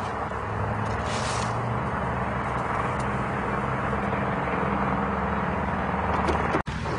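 Steady road traffic: tyre and engine noise from passing cars, with a momentary dropout in the sound near the end.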